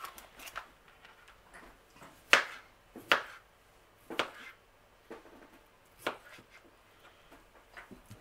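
Kitchen knife slicing pre-packed beetroot on a plastic cutting board: about five sharp knocks of the blade striking the board, roughly a second apart, the first the loudest.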